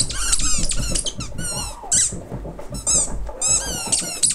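Rapid high-pitched squeaky chirps, each sliding down in pitch, several a second with short breaks between runs.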